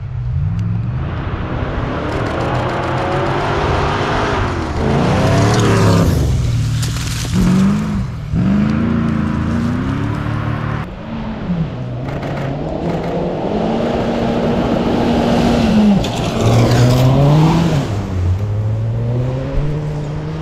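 Rally car engine revved hard through the gears, its pitch climbing and then breaking off or dropping sharply again and again with each shift or lift-off, over a constant rushing noise.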